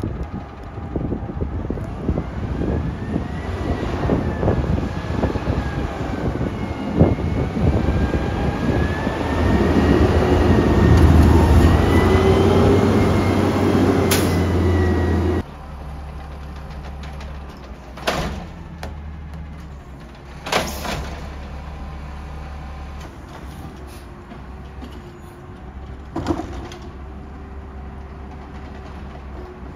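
Natural-gas automated side-loader garbage truck driving past up close, its engine running with a whine that rises and falls in pitch and grows loudest as it passes. After an abrupt cut, the truck idles at the curb while its automated arm handles a green waste cart, with three sharp knocks.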